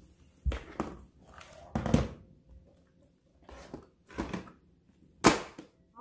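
Scattered plastic knocks and thunks from a robot vacuum and its plastic mopping parts being handled and set down on a hardwood floor, the loudest a sharp knock about five seconds in.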